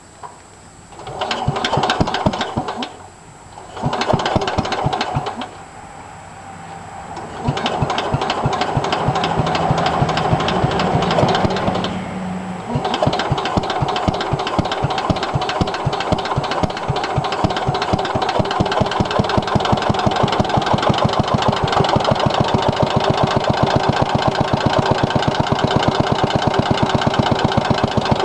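Single-cylinder Kohler engine of a 1963 Cub Cadet Original cold-started: two short bursts of cranking, then it catches about seven seconds in and runs with a hard, regular knock on every stroke. It knocks bad: metal flakes were found in the oil, and the owner reckons the engine needs a rebuild.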